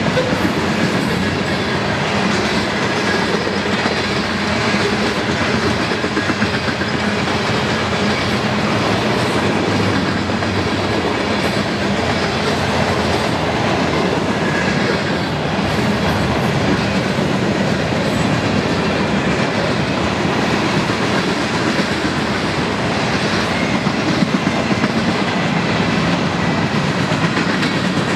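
Cars of a mixed freight train rolling past at speed: a steady loud noise of steel wheels running on rail.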